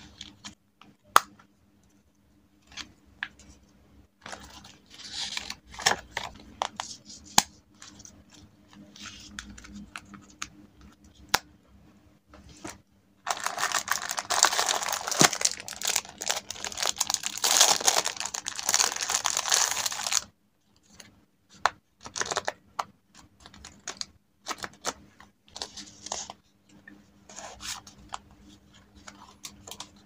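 Paper and stationery being handled, with scattered taps, clicks and short rustles. From about 13 to 20 seconds, a clear plastic wrapper around a pad of memo paper crinkles loudly as it is handled.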